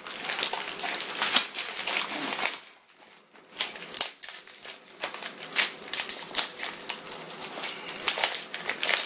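Clear plastic wrap and tape crinkling and rustling as hands tear it off a taped row of small cardboard boxes, with a short lull about three seconds in.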